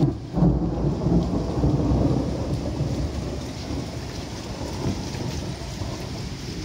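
Thunder rumbling, loudest in the first couple of seconds and then dying away, over steady falling rain.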